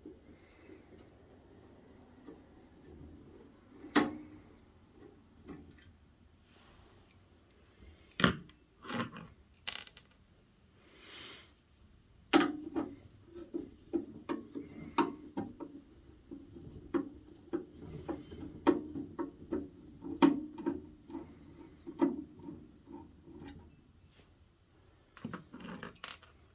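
Clicks and knocks of a hand screwdriver working screws out of an electric heater's case, with a few louder knocks as parts are handled. About halfway through comes a dense run of small, quick clicks lasting around ten seconds.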